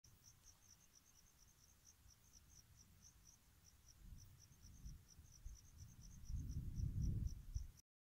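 Crickets chirping in a steady, rapid, high-pitched rhythm. A low rumbling noise grows in the second half and is the loudest thing near the end, before all sound cuts off abruptly.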